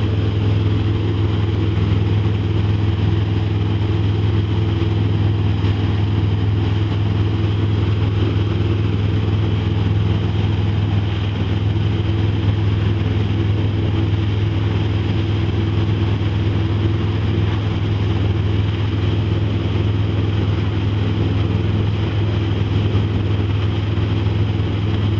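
Motorboat engine running steadily at one speed, towing the surf wake, with a low hum, over the steady rush of churning wake water.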